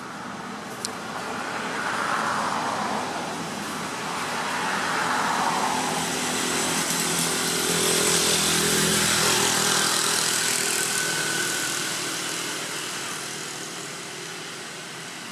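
Motor vehicles driving past one after another, their engine and road noise swelling and fading in several waves, loudest about two-thirds of the way through. A single sharp click sounds just under a second in.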